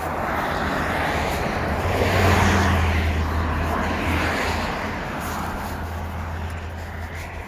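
A road vehicle passing by, its tyre and engine noise swelling to a peak about two seconds in and then slowly fading, with a steady low hum underneath.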